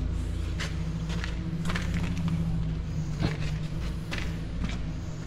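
Footsteps on a concrete shop floor, about seven irregular steps, over a steady low hum.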